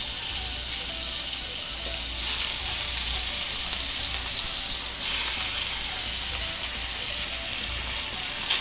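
Chicken thighs sizzling in smoking-hot oil in a cast iron skillet, the sizzle growing louder about two seconds in and again about five seconds in as more pieces are laid into the pan with tongs.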